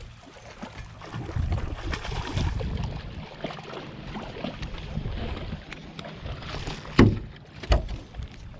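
Wind buffeting the microphone in an irregular low rumble, with two sharp knocks less than a second apart near the end.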